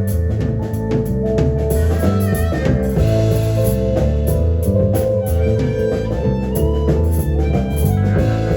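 Live rock band playing an instrumental passage: guitar over drums and bass, with a steady beat.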